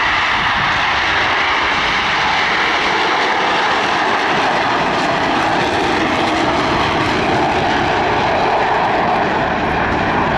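Blue Angels F/A-18 Hornet jets passing with a loud, steady roar of jet engine noise.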